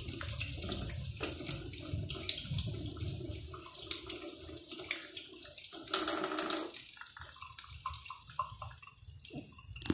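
Kitchen tap running into a sink, with small clinks, until it stops about seven seconds in, leaving only scattered faint ticks.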